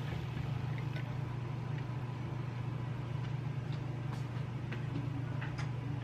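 A steady low hum with scattered light taps and clicks as stir-fried tomato and onion slide out of a frying pan onto a plate.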